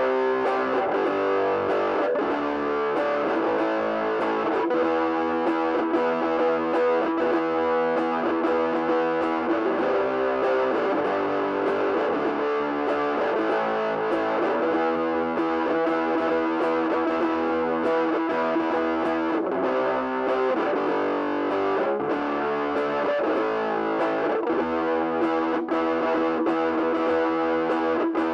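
Electric guitar played through a Cornel Fire Legend GA15 practice amp on its overdrive channel: a continuous distorted passage of notes and chords at an even loudness.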